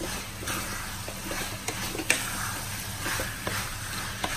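Wooden spatula stirring sliced chicken sausages through a thick masala in a metal frying pan, scraping and knocking against the pan several times over the sizzle of frying.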